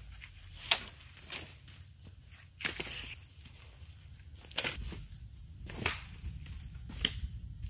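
Footsteps crunching through dry leaf litter and twigs, with a long dead pole dragged and handled over the ground: about half a dozen sharp crunches over low rustling. Insects drone steadily and high in the background.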